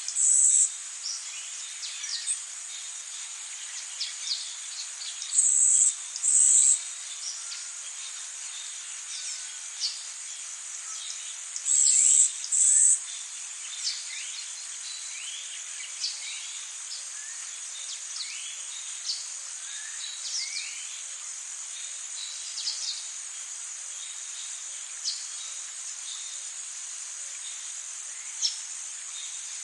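Rainforest ambience: a steady, high-pitched insect chorus. In the first half a louder insect call comes as pairs of short buzzes about every six seconds, over scattered brief bird chirps.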